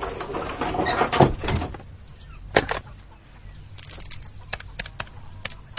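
Radio-drama sound effects: chickens clucking, a door clunking about two and a half seconds in, then a run of sharp separate clicks from a telephone being dialled.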